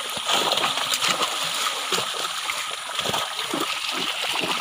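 Lots of fish thrashing in shallow water crowded inside a drawn-in fishing net, with hands reaching in among them: many small splashes in quick succession.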